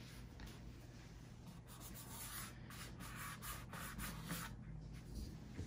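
Faint rubbing and brushing of hands and a wooden acoustic guitar body against its padded hard case as the guitar is shifted. There is a run of short strokes in the middle, over a low steady hum.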